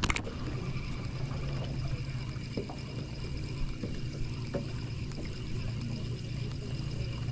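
Steady low hum of a bass boat's electric trolling motor, with a faint high whine above it. A click at the very start and a few light ticks come from a spinning reel being cranked through a retrieve.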